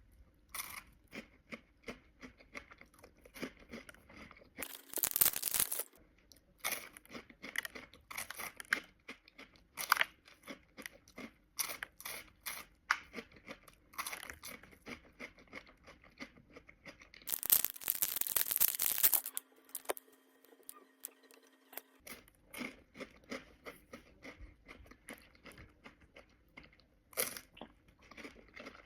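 Close-miked crunching and chewing of Kinder Happy Hippo cream-filled wafer biscuits, a steady run of short crisp bites and chews. Two longer, louder noisy stretches come about five seconds in and again around seventeen to nineteen seconds.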